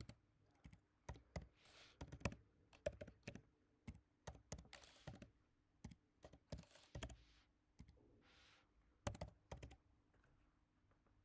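Faint keystrokes on a computer keyboard: irregular runs of short clicks as numbers are typed into a spreadsheet, each entry closed with the Enter key.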